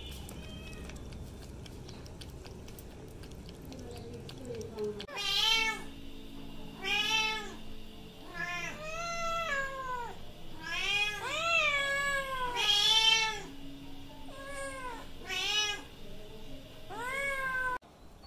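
Ginger-and-white kitten meowing loudly and insistently, about a dozen rising-and-falling cries in quick succession, beginning about five seconds in after a quieter stretch and cutting off abruptly near the end.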